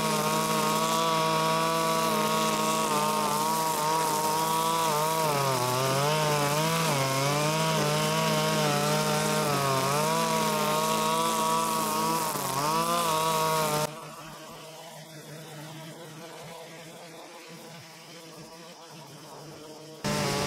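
Zenoah BCZ261 brush cutter's 25.4 cc two-stroke engine running as its nylon cutter head cuts grass, the pitch dipping and recovering under load. About fourteen seconds in it drops suddenly to a much fainter buzz.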